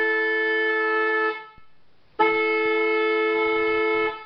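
1964 Cadillac Sedan DeVille's horns sounding a two-note chord in two long blasts, the first ending about a second and a half in and the second lasting about two seconds. They run off a battery that is a little low, with the engine off.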